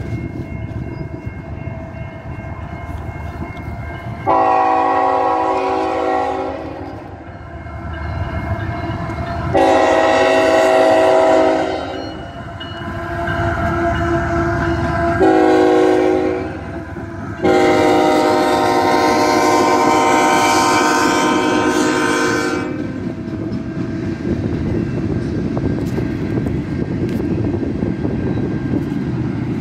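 Freight train passing behind CN diesel locomotives. The lead locomotive's air horn sounds the grade-crossing signal, long, long, short, long, over the engines' rumble. After the last blast the cars roll by with a steady wheel rumble.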